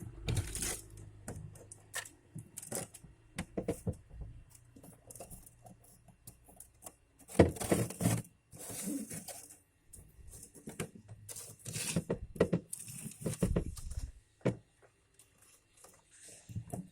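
Irregular handling sounds: scattered clicks and knocks with a few short bursts of rustling or scraping.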